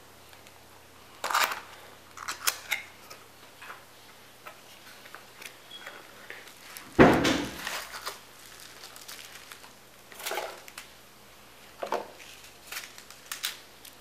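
Packaging being handled on a glass tabletop: plastic wrap and a cardboard box rustling, paper inserts handled, and scattered light taps and clicks. A louder knock comes about seven seconds in.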